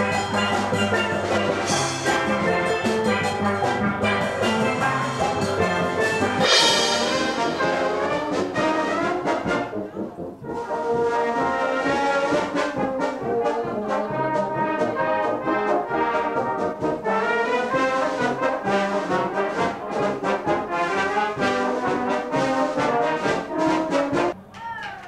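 Live band music: a steel band with conga drums plays, then about ten seconds in a brass band with trumpets and trombones takes over with a tune, breaking off near the end.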